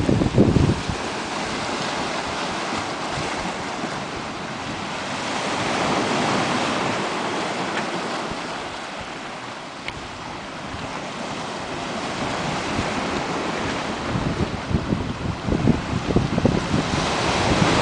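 Sea waves washing onto a stony shore, the surf swelling and ebbing in slow surges. Wind buffets the microphone in gusts in the first second and again in the last few seconds.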